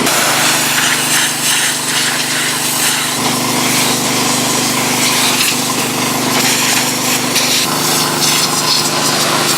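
Small-engine pressure washer running steadily while its spray hisses against a Volvo M46 manual transmission being cleaned. The engine's hum shifts in pitch about three seconds in and again near the end.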